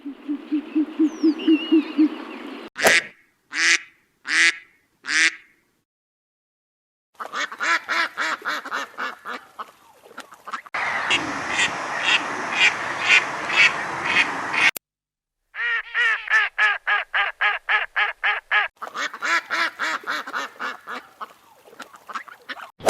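Ducks quacking in a string of separate recordings: four single quacks, then long, fast runs of quacks repeated several times a second.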